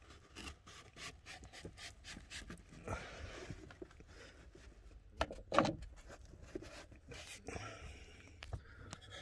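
Hands pressing and rubbing glued carpet lining onto a van wall: soft rubbing and handling noises with scattered small clicks and knocks, and one brief louder rustle about five and a half seconds in.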